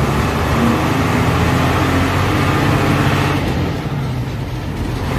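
An old bus's engine running under way, heard from inside the cab, with a steady low drone and road noise; the engine eases off about three and a half seconds in.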